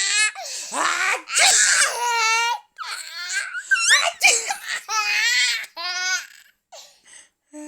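A baby laughing in repeated bursts of high, pulsing giggles and belly laughs, in response to a parent's fake sneezes and coughs. The laughter fades to short faint sounds near the end.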